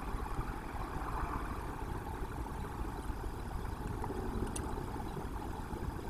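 Steady low rumbling noise with a hiss above it. One faint click comes about four and a half seconds in.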